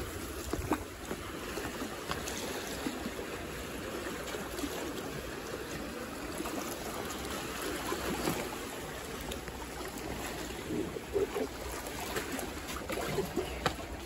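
Seawater sloshing steadily against a concrete harbour wall, with a few small knocks from handling.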